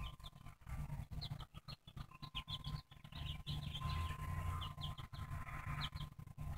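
Baby chick peeping: many short, high chirps, some in quick runs, over a low steady rumble.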